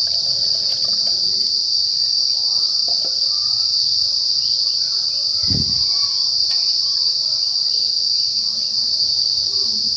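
Crickets chirring in a steady, high-pitched chorus, with a single soft low thump about five and a half seconds in.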